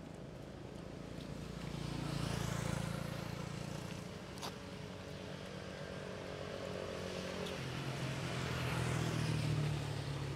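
Motor vehicles passing on a nearby road, one after another: an engine hum and tyre rush swell up and die away twice, the second pass the louder. A single sharp click near the middle.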